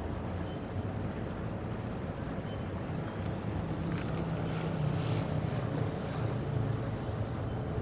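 City street traffic: a motor vehicle's engine running nearby, a steady low hum over general street noise, growing slightly louder about halfway through.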